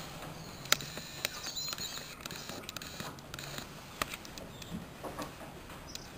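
Outdoor ambience with faint bird chirps and a few sharp clicks, three of them standing out.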